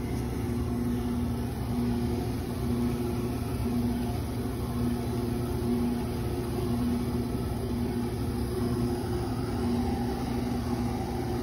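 Motor of a spinning sand-table exhibit running: a steady low hum with a tone that swells and fades about once a second.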